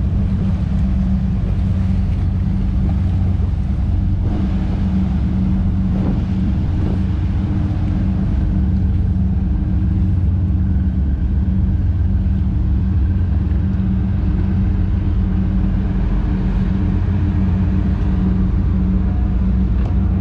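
A boat engine running steadily, a low even hum, with wash of water and wind over it.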